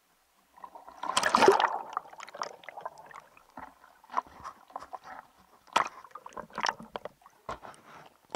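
Sea water splashing and sloshing as a spearfisher in a wetsuit slides off the rocks into shallow water, the biggest splash about a second in. Smaller irregular splashes and gurgles follow as the microphone dips in and out of the surface and goes under.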